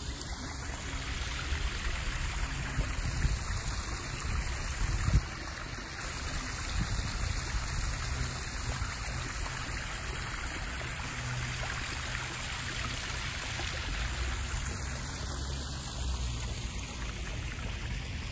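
Backyard koi pond's small waterfall and fountain, water splashing and trickling steadily, with a single short thump about five seconds in.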